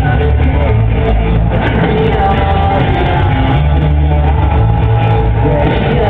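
Live rock band playing loudly through an arena sound system, with a male singer's vocal over heavy bass and guitars. It is heard from within the crowd in a large hall, so it sounds boomy and reverberant.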